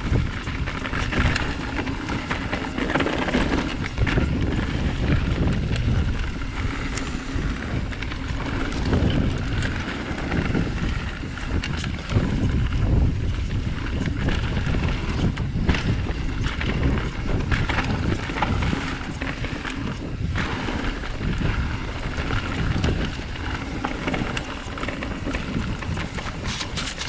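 Wind buffeting the microphone over a mountain bike rolling fast along a dirt and rock trail, the tyres crunching on the ground, with scattered clicks and knocks from the bike over rough ground.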